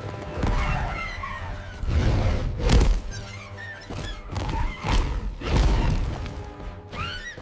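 Dramatic cartoon soundtrack music with several sudden thuds and crashes, the loudest hits about 2 to 3 seconds and 5 to 6 seconds in.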